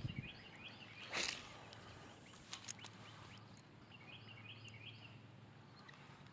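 Quiet lakeside ambience: a small bird repeats short high chirps in little groups. About a second in there is a brief swish, the whoosh of a spinning rod being cast, and a few light clicks follow around three seconds in.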